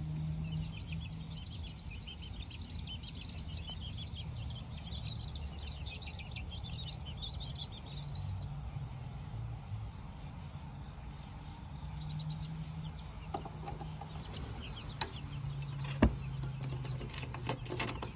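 Steady insect trilling, like crickets at night, with rapid short high chirps in the first half. Near the end come a few sharp metallic clicks as a metal hasp latch on the wooden brooder box is handled.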